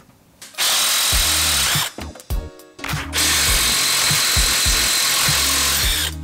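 Cordless impact wrench spinning off nuts under a leaf spring, in two runs: one of about a second, then a longer one of about three seconds.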